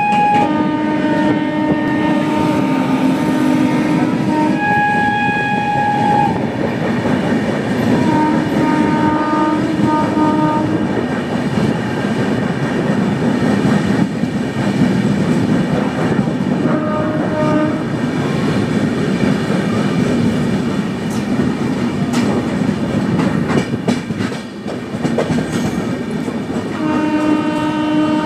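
Train running on the rails with a steady rumble, while train horns sound several times: a long blast over the first few seconds, a higher-pitched one right after it, shorter ones around ten seconds and a little later, and another starting near the end.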